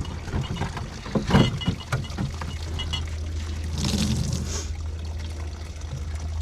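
Dishes knocking and clinking against each other in a basin of hot soapy water, with water sloshing and splashing about four seconds in as they are washed by hand.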